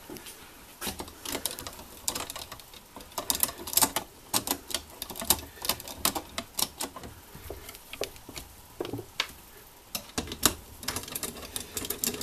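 Irregular light metal clicks and taps of case screws being set and turned in with a long-shafted screwdriver on the aluminium crankcase of a Simson moped engine.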